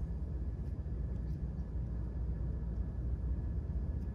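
Steady low rumble of background room noise with no speech, even throughout, with a faint thin steady tone above it.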